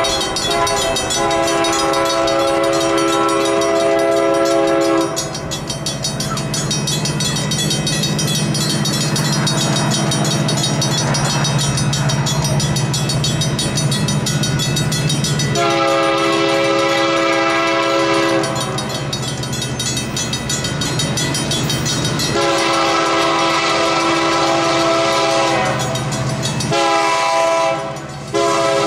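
Union Pacific diesel freight locomotive's air horn sounding four long blasts, each a chord of several notes, as the train approaches a grade crossing. A low rumble from the approaching train fills the gaps, and a crossing-signal bell rings steadily underneath.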